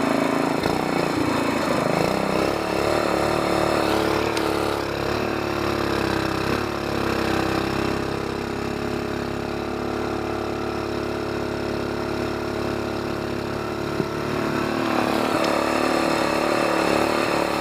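Longtail mud motor running on a boat, its engine speed changing: it eases off about four seconds in, holds a lower steady run, then picks up again near the end.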